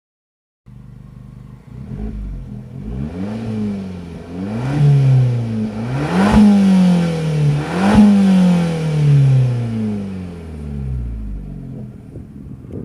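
Fiat 500 Abarth Esseesse's 1.4 T-Jet turbocharged four-cylinder engine being revved in four quick blips, each rising fast and sinking slowly back towards idle. A sharp crack sounds at the peak of the last two revs.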